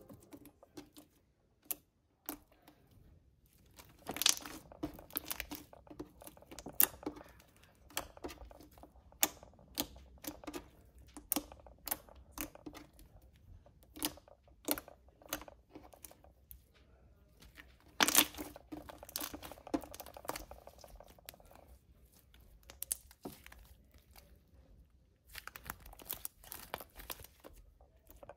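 Homemade glue-and-cornstarch slime being pressed, poked and stretched by hand, giving irregular sticky pops and crackles. The pops come in louder clusters about four seconds in, around eighteen seconds and near the end.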